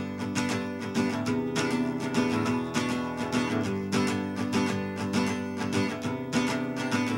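Acoustic guitar strummed in a steady chord rhythm: an instrumental song opening with no singing yet.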